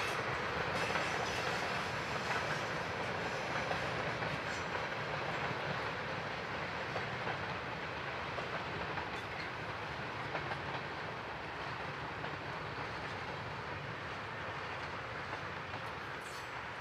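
Freight train of tank cars and boxcars rolling past: a steady rumble of wheels on rail with light clicks, slowly fading as the last cars go by.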